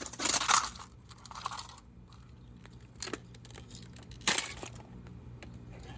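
A 1987 GE alarm clock radio being smashed and broken apart: plastic crunching and cracking, loudest in the first second, then a smaller crunch, a click about three seconds in and a sharp crack a little after four seconds.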